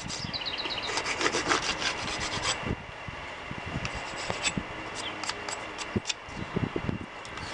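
A metal hive tool scraping a wooden frame wedge bar clean. A quick run of rasping strokes comes about a second in, then slower, scattered scrapes.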